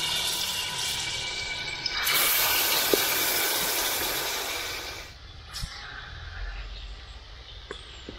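Marinated chicken frying in hot oil in a pan: a loud sizzle that surges louder about two seconds in and dies down after about five seconds. A faint steady whistle runs under it for the first two seconds.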